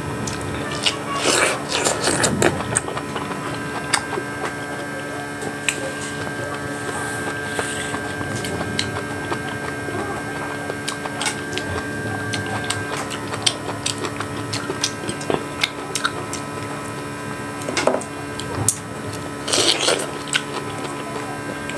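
A person chewing and biting juicy pineapple slices close to a clip-on microphone, with a few louder bites near the start and near the end, over a steady electrical hum.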